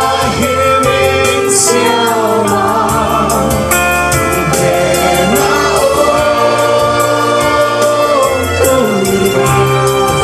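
Live gospel worship music: a group of voices singing together over amplified instruments with a steady beat.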